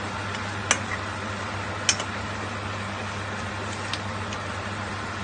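Metal spoon stirring in a nonstick pan of simmering chicken soup, knocking against the pan in a few sharp clinks, the loudest in the first two seconds. A steady low hum and bubbling hiss run underneath.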